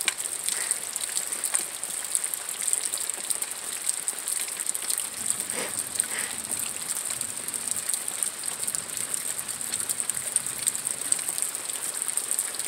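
Steady rain pattering, with a continuous high-pitched rattling buzz running through it.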